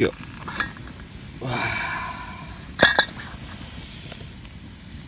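Metal cooking pot and lid being handled: a short ringing scrape, then two sharp metallic clinks in quick succession about three seconds in.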